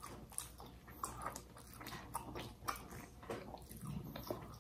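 Close mouth sounds of eating baked fish: chewing, with many faint, irregular wet clicks and smacks.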